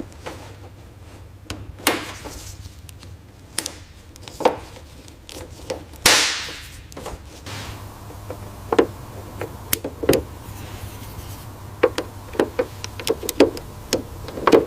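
Scattered taps and knocks over a low steady hum, with a short hiss about six seconds in.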